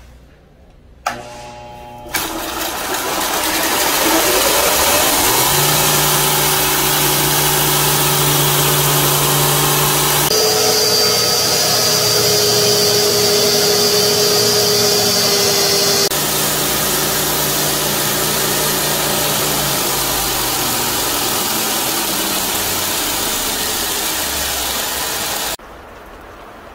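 Bench belt sander switched on, its motor whine rising as it spins up, then running steadily while wooden knife handle scales are ground against the abrasive belt. The sound shifts abruptly twice and drops to a quieter hum near the end.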